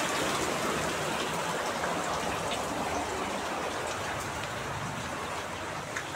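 Heavy rain pouring steadily, a dense even hiss, with a few separate drops ticking in the last couple of seconds.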